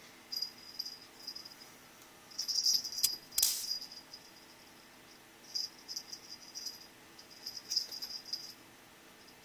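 A kitten's small toy jingling in short, rapid flurries as the kitten bats and grabs it, with one sharper scrape or knock about three and a half seconds in.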